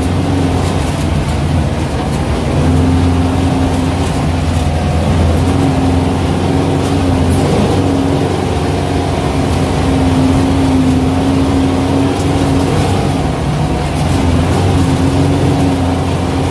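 Air-cooled VW Beetle flat-four engine of a Baja Bug running steadily under load over a rough dirt trail, heard from inside the cabin as a steady low drone. A higher tone in it fades in and out every few seconds.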